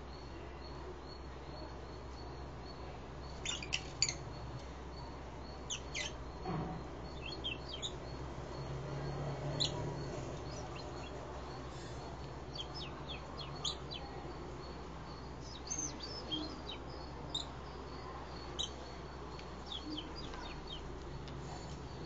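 Caged lovebirds giving short, sharp, high chirps, singly and in quick little clusters at irregular intervals, over a steady low hum.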